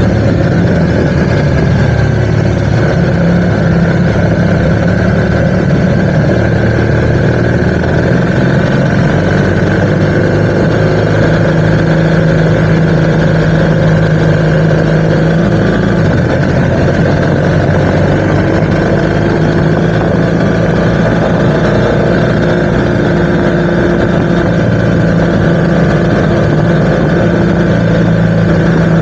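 BMW R1200 GS Rallye's boxer twin engine running at steady cruising speed, under an even rush of wind and road noise. The engine note dips for a few seconds just past the middle, then settles back.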